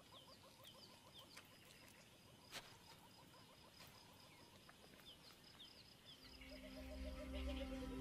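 Faint bird calls: short notes repeated in quick runs, and chirps sliding down in pitch, over a quiet background with a few soft clicks. Soundtrack music fades in about six seconds in and swells.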